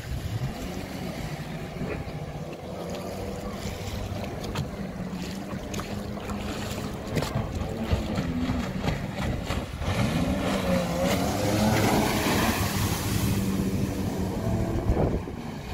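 Sea-Doo Speedster jet boat running at speed and carving turns, its engine pitch swooping up and down several times over a steady engine drone, with water spray and wind. The noise grows louder from about ten seconds in and peaks sharply near the end.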